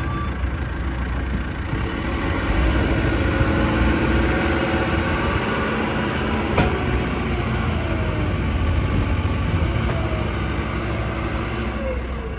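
JCB 3CX backhoe loader's diesel engine running steadily, with one sharp click about six and a half seconds in.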